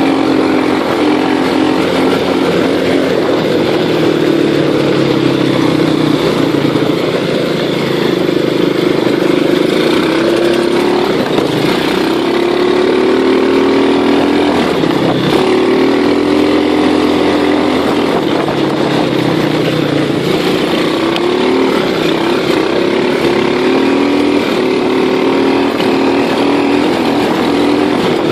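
Small engine of a 125 cc-class ATV or motorbike running continuously, its pitch wavering up and down.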